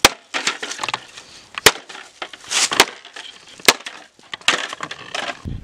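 Wood knocking and splintering: several sharp cracks about a second apart, with scraping and rustling in between.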